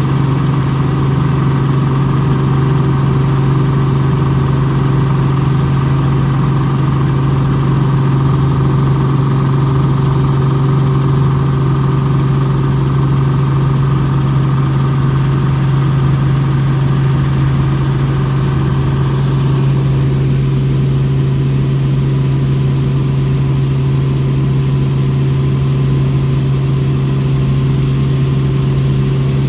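Light helicopter's engine and rotors droning steadily, heard from inside the cabin in flight, with a strong low hum. The higher part of the drone drops a little about twenty seconds in.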